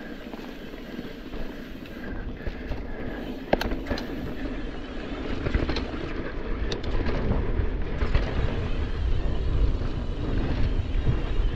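Mountain bike riding down a dirt singletrack: tyres rumbling over the trail with wind buffeting the microphone, and the bike rattling with sharp knocks and clicks about three and a half seconds in and a cluster more around six to seven seconds. The rumble grows louder in the second half as the bike picks up speed.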